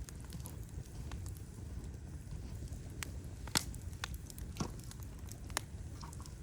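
Wood fire crackling: scattered sharp pops, the loudest about halfway through, over a steady low rumble.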